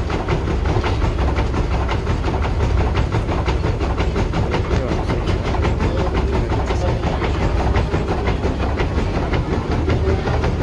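Working water-powered gristmill grinding flour: a rapid, steady clatter of the wooden hopper's feed shoe being shaken by the turning millstone mechanism, over the low rumble of the running stones and gearing.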